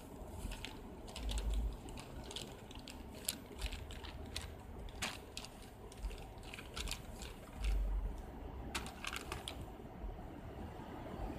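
Handling noise on a hand-held phone's microphone: irregular small clicks and taps, with a few low bumps, about a second and a half in, near four seconds and just before eight seconds.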